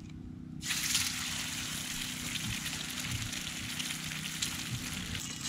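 An egg dropped into hot oil in a cast-iron skillet, sizzling: the hiss starts suddenly just over half a second in and then holds steady.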